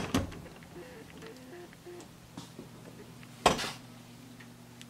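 Two sharp knocks, one right at the start and a louder one about three and a half seconds later, over a faint steady hum.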